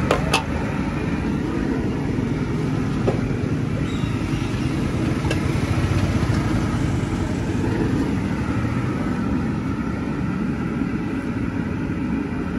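Steady low rumble of road traffic and street noise, with a few short clinks of a steel ladle against the steel pan.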